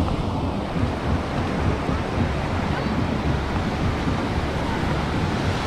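Small waves washing up on a sandy beach, with wind rumbling on the microphone.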